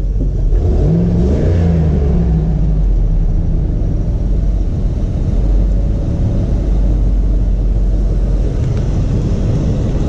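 Ford F-150 pickup engine idling steadily, a continuous low rumble.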